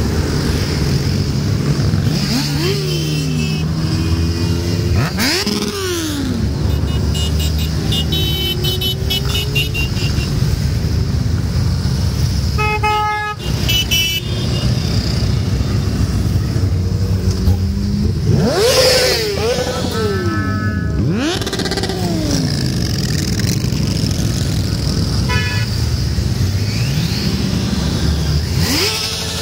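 A long procession of motorcycles and scooters riding past one after another, their engine notes rising and falling as each goes by. Horns are tooted several times, in short honks.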